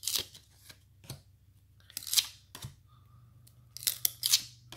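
Trading cards from a stack of 1992-93 Fleer Ultra basketball cards being slid off one by one, about four short papery swishes of card rubbing against card.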